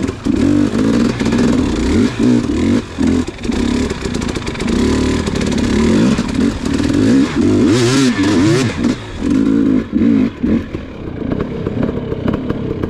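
Dirt bike engine being ridden, its pitch rising and falling again and again with throttle and gear changes. A short hissing burst comes about eight seconds in.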